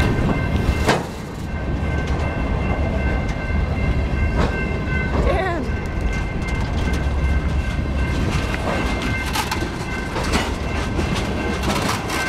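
Freight train cars rolling past at close range: a heavy low rumble with scattered clicks of the wheels over the rail joints and a steady high whine running through it.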